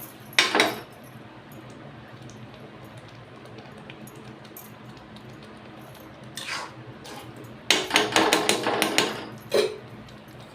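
Metal utensils clattering against a cooking pan: one sharp knock about half a second in, another a little after six seconds, then a quick run of knocks and scrapes for about two seconds near the end.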